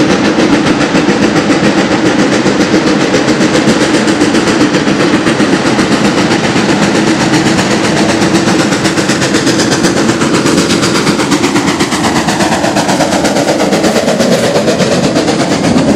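Steam locomotive working hard under load, its chimney exhaust beating in a rapid, even rhythm, growing slightly louder near the end as it runs close past.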